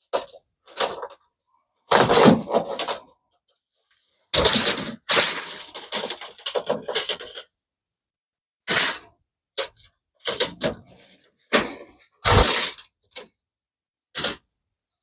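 Hard debris clattering and cracking in about ten irregular bursts, some short knocks and some longer rattling spells lasting a second or more, the typical sound of broken roof material being handled and thrown down during demolition cleanup.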